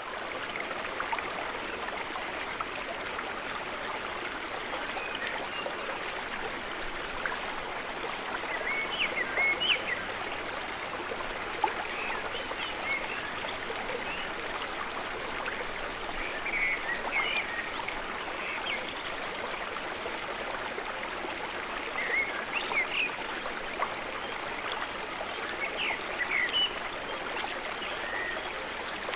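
Water of a stream or small river flowing with a steady rush. Short, high-pitched chirps or splashes are heard now and then on top.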